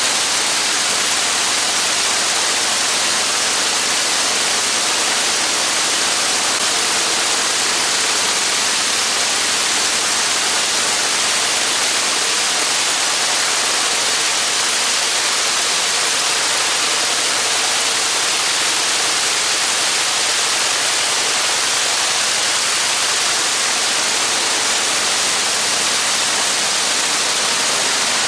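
Spirit of St. Louis replica's engine and propeller running steadily on a ground run, heard as a loud, even rushing noise.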